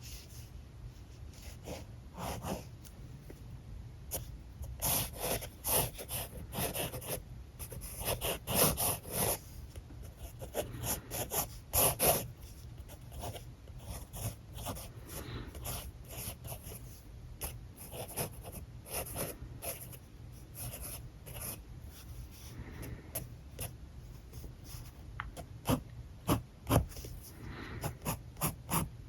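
Alcohol marker tips stroking and scratching across paper in quick, irregular strokes, with denser, louder runs of strokes in the first half and again near the end.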